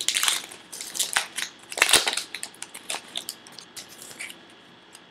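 A baseball card pack's wrapper being torn open and crinkled by hand, in irregular crackles that thin out and fade near the end.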